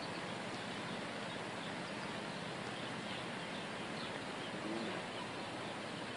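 Steady outdoor background noise with faint bird chirps.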